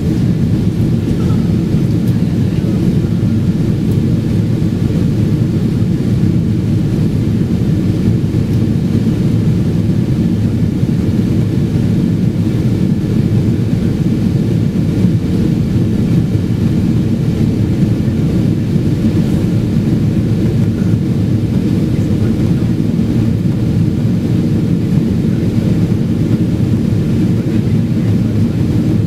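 Steady, loud low rumble inside the cabin of a Boeing 777-200 airliner climbing after takeoff: jet engine and airflow noise, even throughout with no change in pitch.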